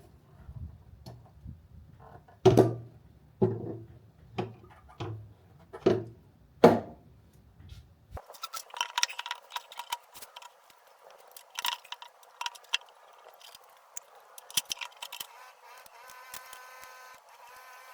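Hands working on a vintage motorcycle's parts: about half a dozen sharp metal knocks and clunks. After an abrupt cut about eight seconds in, a run of light clicks and rattles follows.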